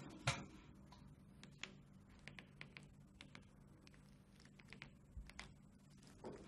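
Faint, irregular light clicking of keys or buttons being pressed, like typing, over a low steady hum.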